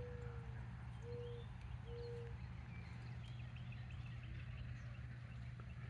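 A bird calling outdoors with three short, soft, low notes of even pitch in quick succession, then faint high chirping of small birds, over a steady low hum.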